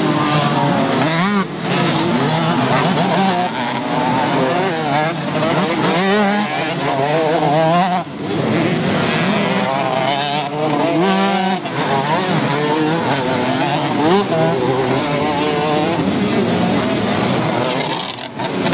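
A pack of two-stroke motocross bikes racing hard through a dirt turn. Several engines overlap, their pitches rising and falling as the riders work the throttle and shift.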